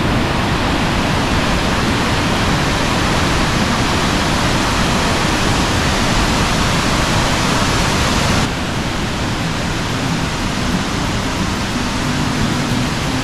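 Waterfall rushing, a steady dense roar of falling water; about eight seconds in it abruptly becomes a little quieter.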